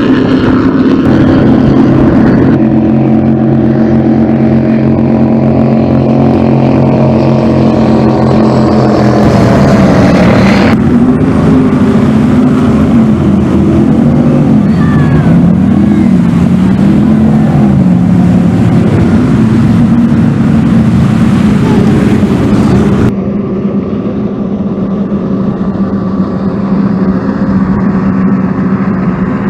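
High-performance offshore powerboat engines running at full throttle, a loud steady drone. The pitch wavers up and down midway. The sound changes abruptly a few times, and near the end it turns to a somewhat quieter high-speed run from twin outboard motors.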